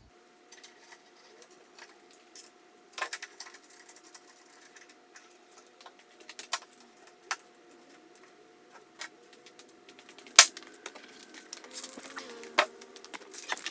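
Scattered clicks and knocks of a straight-edge cutting guide and its clamps being fitted onto a wooden board, the sharpest knock about ten seconds in, over a faint steady hum.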